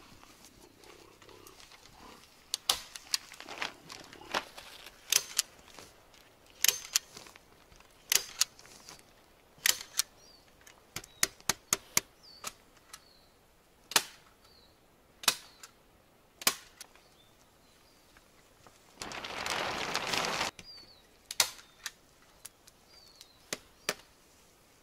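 Hand staple gun fired again and again, sharp snapping clicks at irregular intervals, as it fastens clear plastic sheeting to wooden poles. About three-quarters of the way through, the plastic film rustles loudly for about a second and a half.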